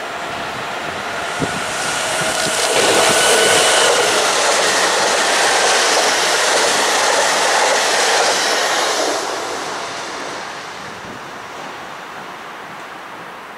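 Electric TER regional multiple-unit train passing at speed: it builds from a distant rumble to a loud rush of wheels on rail for about six seconds, then fades as it moves away. A thin steady whine is heard during the approach.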